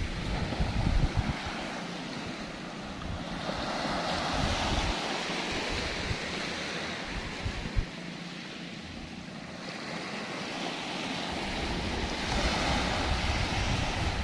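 Small surf breaking and washing up a gravelly sand beach, swelling twice as waves roll in. Wind buffets the microphone, rumbling most near the start.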